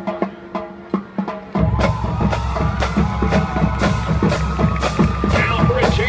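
College marching band: a few short, clipped brass-and-drum hits, then about a second and a half in the drumline drives into a steady loud beat of about two strikes a second, bass drum and snare, with horns holding notes over it.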